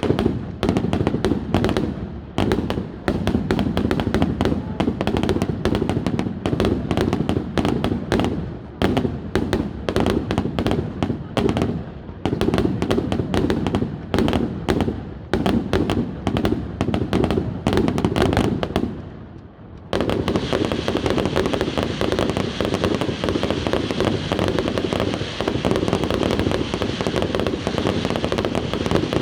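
Fireworks display going off in a rapid, continuous barrage of bangs. It dips briefly about two-thirds of the way through, then comes back as a denser, unbroken crackle.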